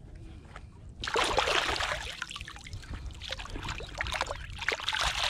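Shallow seawater splashing and sloshing as a gutted pink salmon is rinsed by hand, beginning about a second in as a quick, irregular run of splashes.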